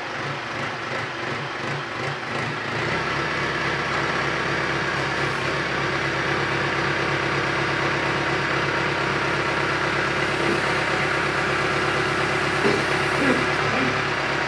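John Deere compact utility tractor's diesel engine, freshly started, running and working the front loader as it lifts a full tote. The note is uneven for the first few seconds, then settles to a steady, slightly louder run.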